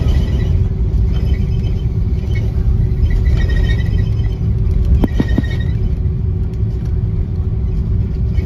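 Cabin noise of an Airbus A330-300 rolling on the runway after landing: a steady low rumble of the wheels and engines with a constant hum, and a few sharp knocks about five seconds in.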